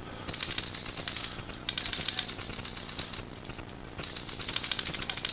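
Airsoft guns firing in rapid full-auto bursts, three strings of fast clicking shots a little over a second each.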